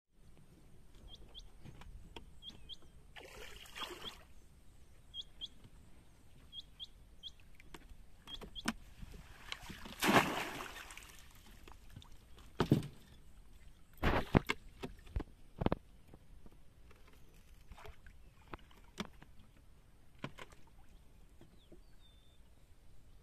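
Water splashing and sloshing, with one big splash about ten seconds in and a smaller one a few seconds earlier, several sharp knocks in the middle, and short high chirps repeating through the first half.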